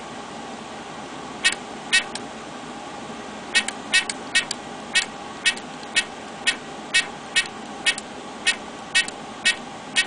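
Security keypad's beeper giving one short, high beep for each key press as a long access code is keyed in: about sixteen beeps, roughly two a second, with a pause of over a second after the first three.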